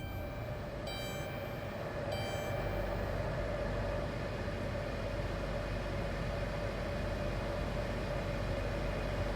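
Two short electronic dashboard chimes about one and two seconds in, over the steady hum of a 2015 Chrysler Town and Country's 3.6-litre V6 idling just after start-up.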